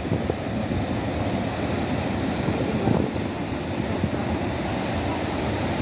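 Ocean surf: a steady, rumbling wash of waves with no breaks, with wind buffeting the microphone.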